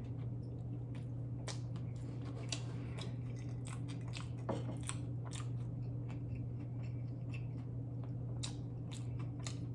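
A person chewing food close to the microphone: scattered soft wet clicks and smacks, over a steady low hum.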